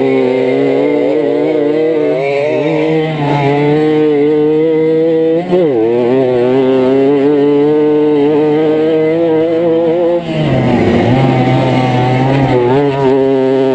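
Kreidler Flory 50 cc two-stroke moped engine running hard at steady high revs, with a brief dip in revs and pick-up about five and a half seconds in and another dip about ten seconds in.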